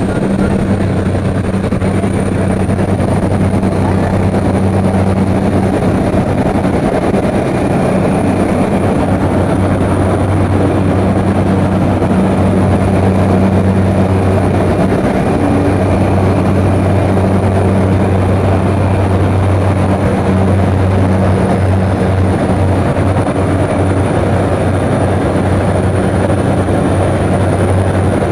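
Light airplane's piston engine and propeller at takeoff power, heard inside the cockpit as a loud, steady low drone through the takeoff roll and into the climb.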